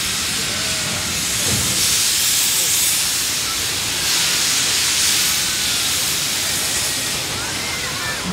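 C62 steam locomotive venting steam in a loud, steady hiss, surging twice. The steam is blowing from the open cylinder drain cocks as the engine starts to move.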